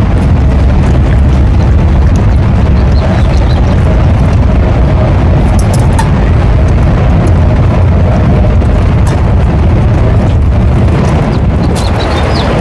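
Wind buffeting the microphone: a loud, steady low rumble with hiss over it.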